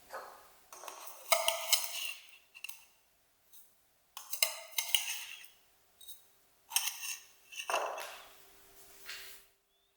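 Kitchen utensils and dishes clinking and scraping in about six separate short bursts, as in hands-on baking work at a counter.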